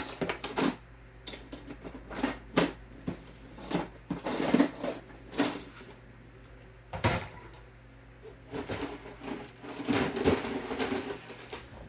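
Plastic LEGO train pieces and bricks being handled and set down: scattered clicks and clatters, bunched around four seconds in and again towards the end.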